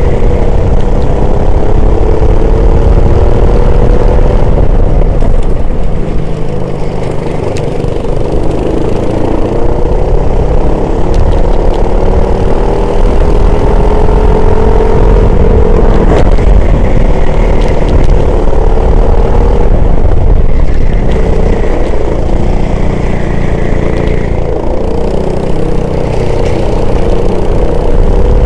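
A race car's engine under hard acceleration: its pitch climbs and drops back every few seconds as it shifts gear and slows for corners, over a steady heavy low rumble.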